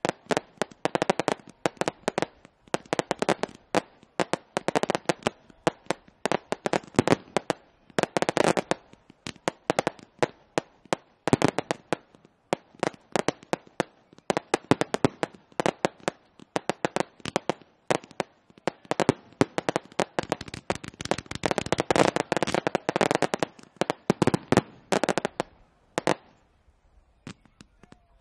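Fireworks going off in quick volleys: sharp launch thumps and bursting shells, with crackling clusters that come and go. The shots thin out to a few faint pops near the end.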